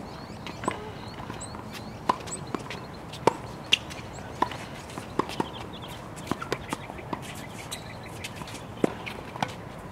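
Tennis rally on a hard court: irregular sharp pops of the racket striking the ball and the ball bouncing, a few loud hits among fainter ones.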